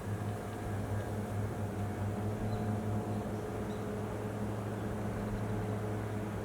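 A machine running with a steady low hum, holding several steady tones without change.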